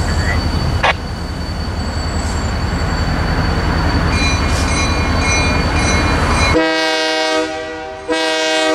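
An approaching train's locomotive horn sounding for the grade crossing: a low rumble, then two loud blasts of the horn's chord, the first about six and a half seconds in and the second about a second and a half later.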